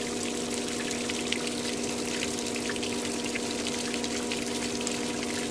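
Intex sand filter pump running on its rinse setting: a steady motor hum under the rushing splash of water jetting from the drain outlet as the rinse resettles the sand in the filter.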